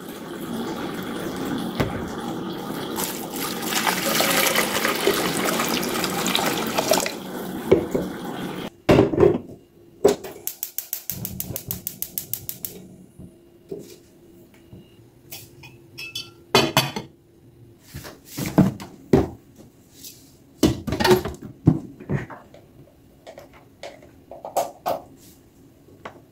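Water pouring into a pot of dried Chinese soup herbs for about eight seconds. Then a gas stove burner's igniter ticks rapidly and evenly for about three seconds as it is lit. After that come scattered knocks and clatter of kitchenware being handled.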